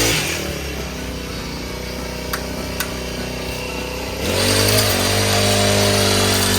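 A pull-started petrol hedge trimmer's small engine running: it drops from high revs to idle, then revs up sharply again about four seconds in and holds at speed.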